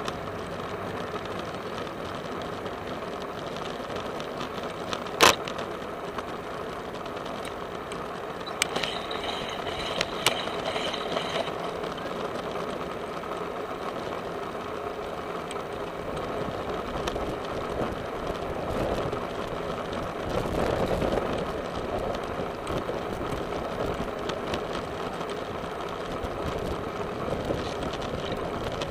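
Bicycle in motion heard from a camera riding on it: steady rolling noise of tyres and drivetrain with small rattles. A single sharp click comes about five seconds in, and there is a louder, rumbling stretch about two-thirds of the way through.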